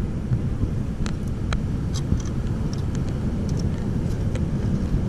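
Steady low rumble of seawater surging in a tidepool rock crevice, with a few faint light clicks.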